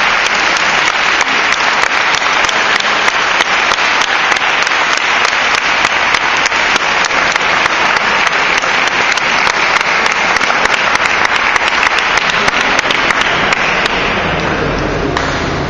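Spectators applauding, a dense steady clapping that fades away near the end.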